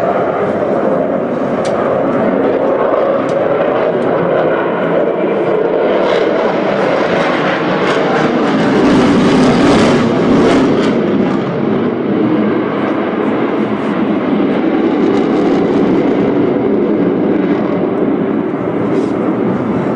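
Jet noise from a Sukhoi Su-35 fighter's twin turbofan engines as the aircraft manoeuvres overhead: a loud, continuous rush that swells to its loudest about halfway through, then eases a little.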